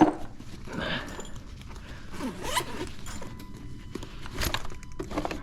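Zipper on a Milwaukee tool bag being pulled open in short quick strokes, with a few clicks and rustles of the tools inside.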